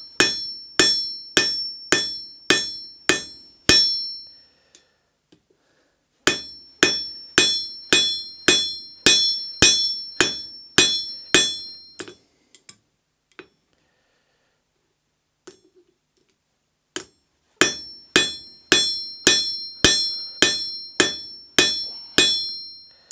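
Hammer blows forging red-hot steel: three runs of steady, evenly spaced ringing metal strikes, about two a second, with pauses of a few seconds between the runs.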